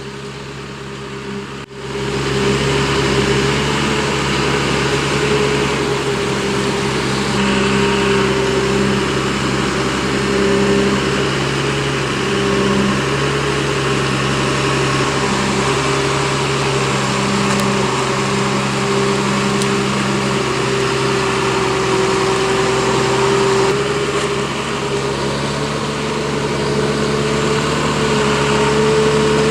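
Heavy forestry machine's engine running steadily under load, with a brief break about two seconds in and its pitch rising slightly near the end.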